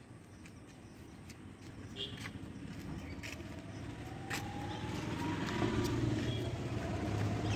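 A motor vehicle approaching along the road, its engine growing steadily louder with a faint rising whine, over a few scattered small clicks.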